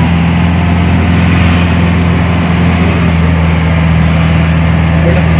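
Engine of a moving vehicle running steadily, heard from inside its cab: a loud, constant low drone with road noise over it.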